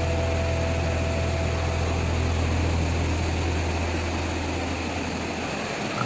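Steady roar of rushing water from a waterfall, an even hiss-like noise with a deep rumble underneath that drops away just before the end.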